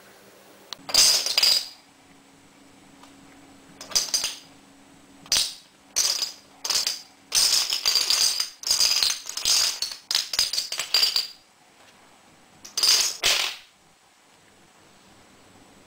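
Small plastic dominoes toppling and clattering against each other on a wooden floor, in repeated bursts of rapid clicks. The longest run lasts about four seconds, in the middle, and a last short burst comes near the end.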